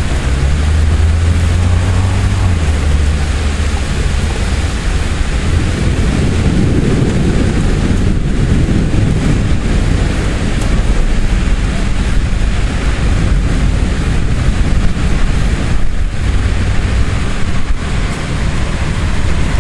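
Thunderstorm wind buffeting the microphone with a steady rushing hiss of rain, heaviest as a deep rumble in the first few seconds.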